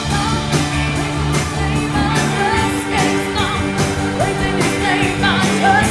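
Gospel band music with a singer: a steady drumbeat under held chords, the voice sliding between notes over the top.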